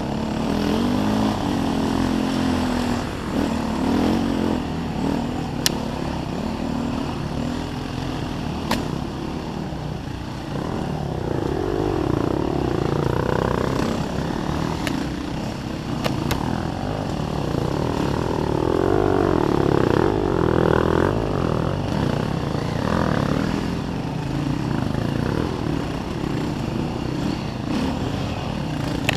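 Enduro dirt bike engine revving up and down as it is ridden over rough forest single track. A couple of sharp clicks come about six and nine seconds in.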